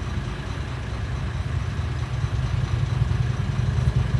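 Motorcycle engine rumbling low, growing louder toward the end as it comes closer.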